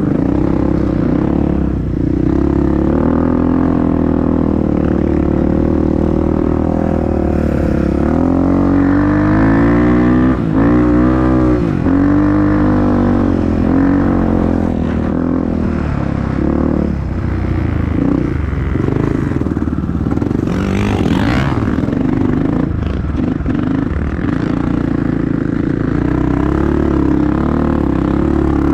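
Honda CRF dirt bike engine running under changing throttle, its pitch rising and falling as it is revved and eased off, most sharply about a third of the way in. A short rush of noise cuts across it about two-thirds through.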